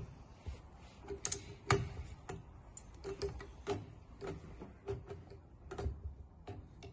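Light metallic clicks and ticks, irregular, roughly two a second, some with a short ring: a hex key and bolt knocking against the aluminium extrusion of a 3D printer's x-axis while it is being mounted.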